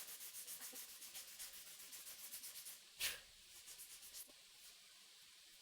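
Faint hand-sanding of a wooden knife handle: quick back-and-forth rubbing strokes, about five a second, with one short louder sound about three seconds in. The strokes thin out and stop after about four seconds.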